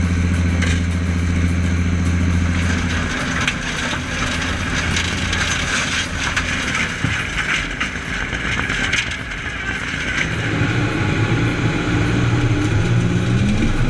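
Stump grinder's engine running with a steady hum, then a long stretch of rough grinding and crackling as the cutter wheel chews into the stump. The engine note comes back about ten seconds in and rises near the end.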